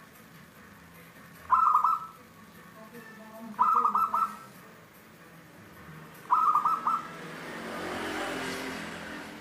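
Caged zebra dove (perkutut) singing its cooing song three times, each phrase a quick run of staccato notes lasting about half a second. Near the end a broad swell of noise rises and fades.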